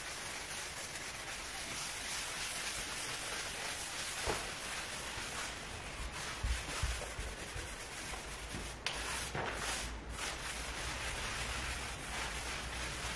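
Sponge scourer scrubbing a wooden parquet floor by hand: a steady rubbing hiss, with a few low thumps about halfway through.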